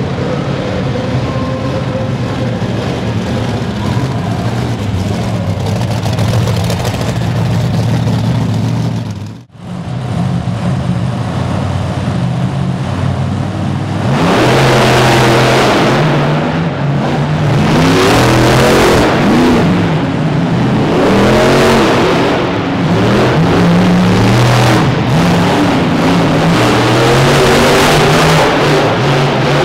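Monster truck engine running at a steady idle. From about halfway through, after a brief cut, it changes to loud revving that rises and falls over and over as the trucks race.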